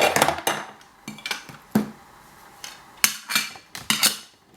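Wooden toy ice cream scoops and cones clacking and knocking together as they are picked up and stacked: a string of sharp clicks, several in a quick cluster about three to four seconds in.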